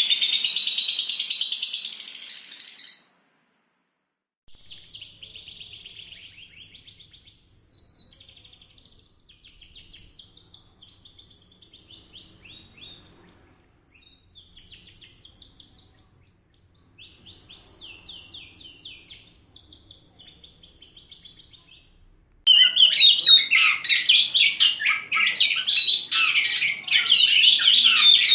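Small songbirds singing in rapid chirps and trills. The song is loud at first, stops briefly, comes back quieter, then turns loud and dense again near the end.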